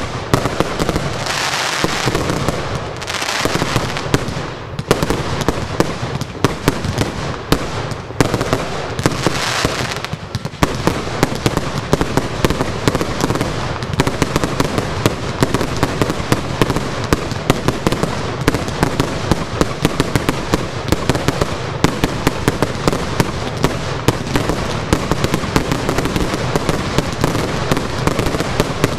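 Fireworks finale: a dense, continuous barrage of rapid launches and aerial bursts, bang after bang with no pause. Several stretches of hissing come through in the first ten seconds.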